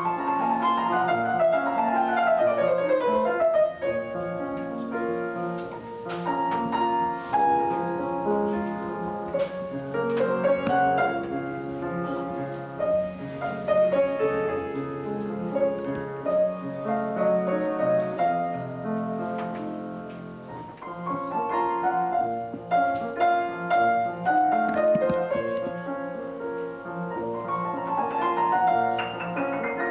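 Grand piano played solo, flowing passages with falling runs of notes near the start and again near the end.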